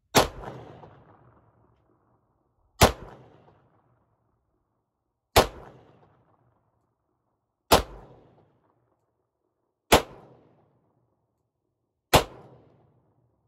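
Six shots from a Rock Island Armory AL 9.0 9mm revolver fired double action, slowly, about two and a half seconds apart, each with a short echoing tail.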